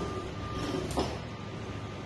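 Small competition robot's electric motors running as it drives and turns on the mat, with a sharp click about a second in, over a steady low hum.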